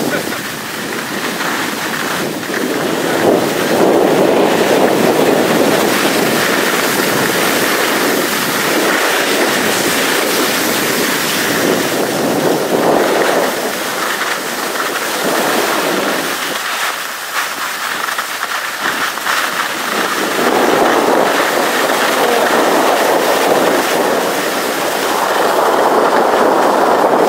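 Steady rushing noise of skiing downhill: wind buffeting the microphone and skis sliding over packed snow. It swells and eases, dropping back for a few seconds past the middle.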